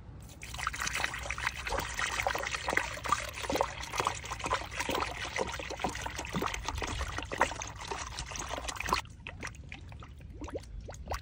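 New engine coolant poured into a car radiator: a steady liquid pour that starts just after the beginning and stops about nine seconds in.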